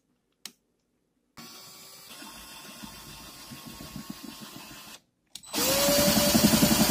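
Power drill boring into a board, in two runs. A quieter run starts about a second and a half in and stops at about five seconds. A louder run follows, its motor whine rising as it spins up and then holding steady.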